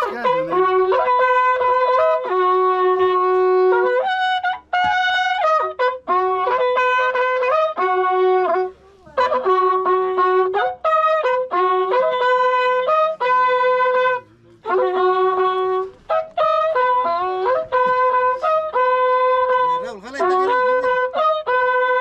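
Andean corneta, a horn trumpet, playing a melody of held notes that step between a few pitches, in phrases separated by short breaths.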